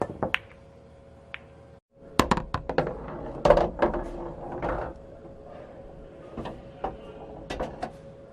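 Billiard balls clicking against one another and against the cue in a pool hall, in sharp single knocks with a quick flurry of clicks about two to four seconds in, over a steady hum.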